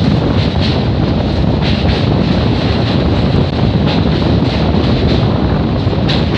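Express train running across a steel truss bridge, heard at an open coach window: loud, steady wind buffeting the microphone over the train's running noise.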